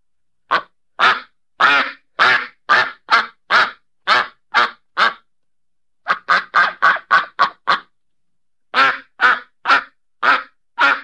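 A duck quacking: loud, repeated quacks about two a second, in runs broken by short pauses about five and eight seconds in, the middle run faster.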